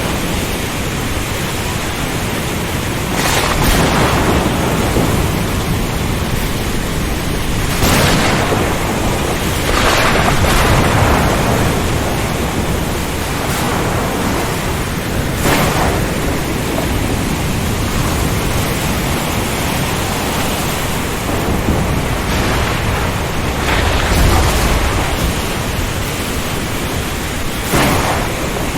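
Ocean storm: a dense, steady rush of wind and heavy rain, with thunder and louder surges every few seconds.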